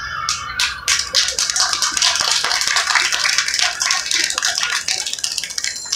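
Music fading out at the start, then a small audience clapping: quick, uneven claps that keep going.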